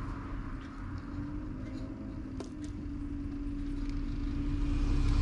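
A low, steady engine hum with a held tone, growing louder toward the end, like a motor vehicle running close by.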